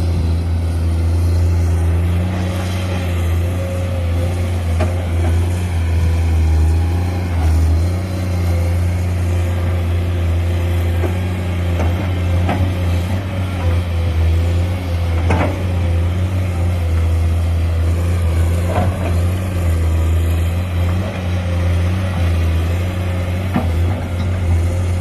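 Heavy diesel engine running steadily at a low, even hum, with a few short knocks around the middle.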